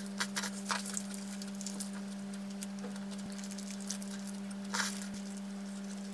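Eating sounds from biting into and chewing a salmon burrito held in a paper wrapper: a few short crisp crunches in the first second and one louder crunch near five seconds. A steady low held tone runs underneath.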